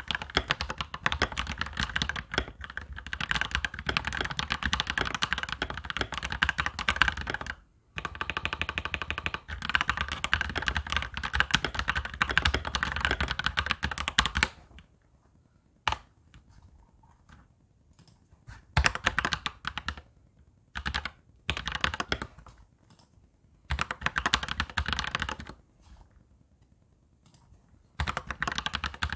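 Touch typing on a Royal Kludge mechanical keyboard: fast, continuous key clicks for the first half, broken about a third of the way in by a short run of rapid, evenly spaced clicks. It then settles into short bursts of typing with pauses between them.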